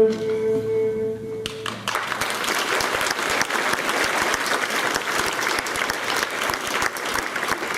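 The last held note of a song dies away, and about a second and a half in a hall audience breaks into steady applause.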